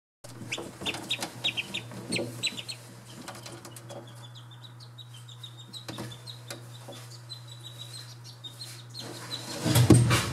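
Australian shelduck ducklings peeping: a quick run of short high peeps in the first few seconds, then fainter scattered peeps. A steady low hum runs underneath, and a louder rustling scuffle comes near the end.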